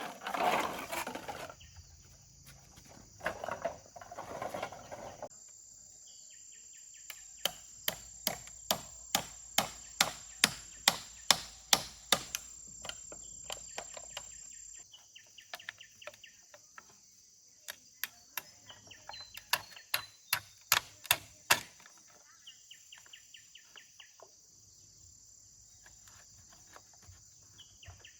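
Repeated sharp knocks, about two or three a second, in two runs, like something being struck over and over, over a steady high insect drone with chirping.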